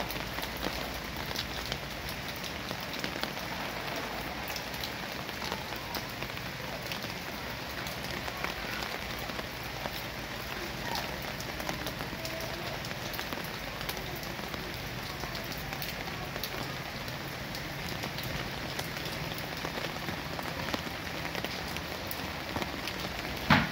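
Steady rain falling on leaves and the ground, an even hiss dotted with small drop hits. A single sharp knock stands out near the end.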